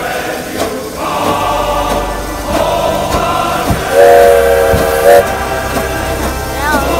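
Narrow-gauge steam locomotive's whistle giving one steady blast of a little over a second, the loudest sound here, over choir music.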